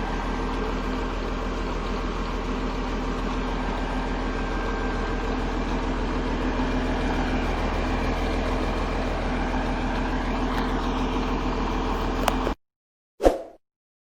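Caterpillar D6C bulldozer's diesel engine running steadily at an even pitch. The sound cuts off suddenly near the end, followed by one short, quickly fading sound.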